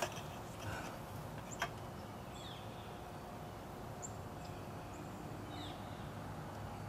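Faint outdoor quiet with a low steady hum and a few short, high bird chirps spread through it; two sharp clicks come near the start and about a second and a half in.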